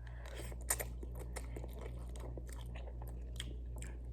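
A person chewing a mouthful of instant ramen noodles close to the microphone: a run of small, irregular wet clicks from the mouth, over a steady low electrical hum.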